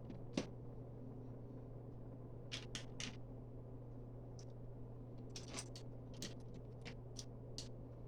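Plastic Lego pieces clicking and tapping as they are handled and pressed together, a scatter of short irregular clicks over a steady low hum.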